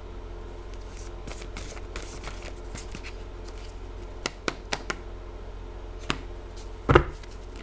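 Tarot cards being shuffled and handled: soft riffling and scattered crisp card snaps, with a quick run of snaps about halfway through and one louder knock near the end. A steady low hum runs underneath.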